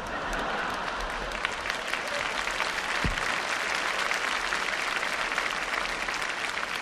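Theatre audience applauding steadily after a punchline, a dense even clapping.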